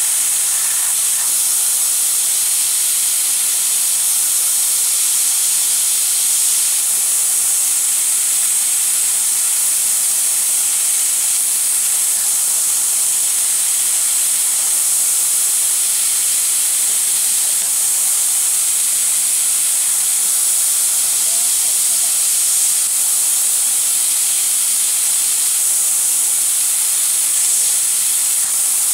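Fiber laser cutting machine running with a steady, unchanging high-pitched hiss.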